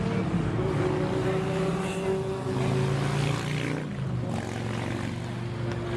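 Air-cooled Volkswagen engine running, a steady drone that eases slightly lower in pitch partway through.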